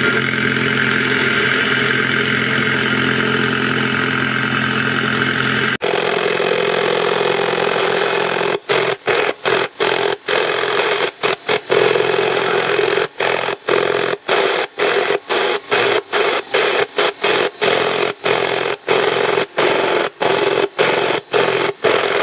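Strong, steady engine-like buzzing interference received on the shortwave band around 5 MHz: a stack of low droning hums over hiss, similar to ignition noise. It is first heard through a WebSDR receiver. About six seconds in it switches to a DX-390 portable shortwave radio's speaker, where from about eight seconds on it is broken by brief silent gaps, about two a second, as the radio is tuned up the band. The buzz stays the same throughout.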